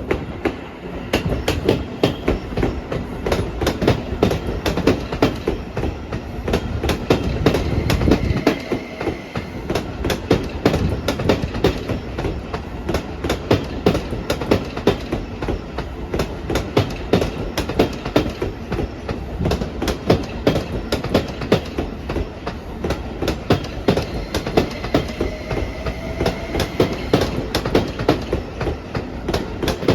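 Keio new 2000-series electric train moving slowly during yard shunting, its wheels clattering over rail joints and points in dense rapid clicks, with a faint rising whine for a couple of seconds near the end.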